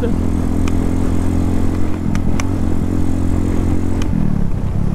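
Motorcycle engine running at a steady speed while riding, its pitch dipping slightly about four seconds in, with a few faint ticks.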